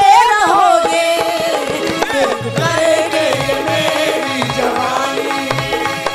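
Qawwali music: a sung melody over hand-drum accompaniment on dholak. The drum beats come in more strongly about two and a half seconds in and keep a steady rhythm.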